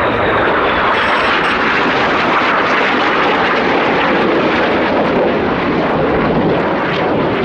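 BAE Hawk T1 jets flying past: a loud, steady rush of jet engine noise, with a faint high whine that falls slightly in pitch over the first couple of seconds.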